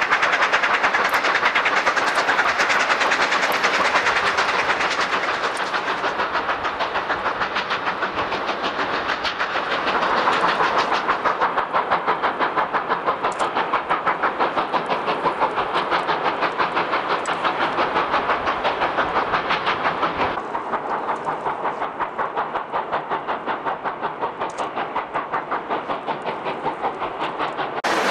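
Steam locomotive exhaust chuffing in a fast, even rhythm as the engine works hard up a steep grade. The sound changes abruptly a few times where the recording is cut.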